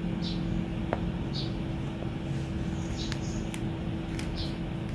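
Quiet handling sounds: a few faint clicks and light rustles as an SR service cable is set into the jaws of a wire stripper plier, ahead of the cut. A steady low hum underneath.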